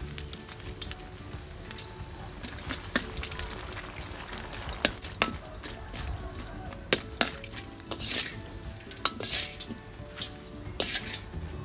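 Dried red chillies frying in oil in a stainless steel wok, with a light sizzle. A wire-mesh strainer scrapes and clinks sharply against the wok several times as the chillies are pushed around and scooped out.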